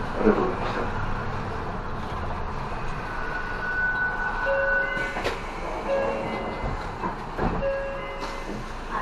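City bus driving, heard from inside the cabin at the front: steady engine and road rumble. From about halfway in, a short electronic beep repeats every second and a half or so, after a steadier held tone, with a single sharp click a little after the middle.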